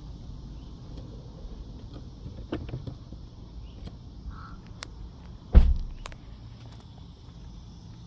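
Low rumble of passing road traffic, with a few faint clicks and one sharp thump about five and a half seconds in. The siren is silent.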